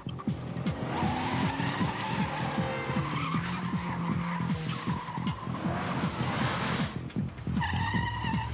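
Mercury Marauder's V8 revving hard as the car is driven fast, with its tyres squealing, over a driving music score.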